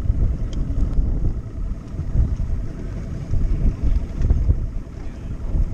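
Low, uneven rumble of bass boats' outboard motors idling close together, mixed with wind buffeting the microphone.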